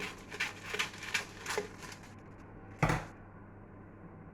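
Kitchen scissors snipping, a run of short crisp cuts about every half second, then a single louder knock as something is set down on the counter.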